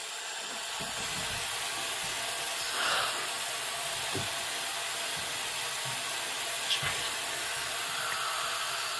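Steady hiss of water running through a Rheem water heater's drain valve that won't shut off, with a few faint knocks along the way.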